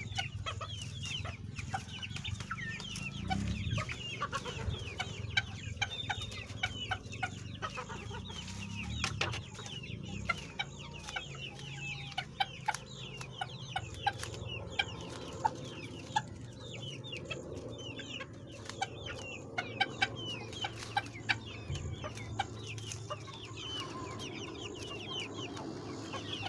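A flock of chickens clucking and calling, with many short high-pitched calls overlapping throughout.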